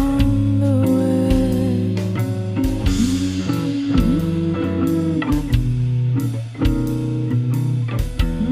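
Background music: a bluesy guitar track with bass and a steady beat, the lead guitar sliding between notes.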